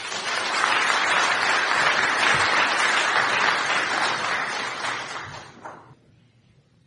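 Audience applauding, clapping steadily and then dying away near the end.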